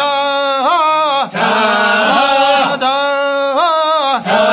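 Men chanting a Korean fishermen's boat-launching work song, the call-and-response sung while pushing the boat off with poles. Three long held phrases, each about a second and a half, two of them ending in a rising swoop.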